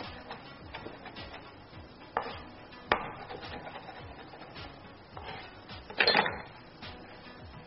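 Chef's knife chopping fresh coriander on a wooden chopping board: scattered knocks of the blade on the wood, with sharper strikes about two and three seconds in and a short cluster about six seconds in.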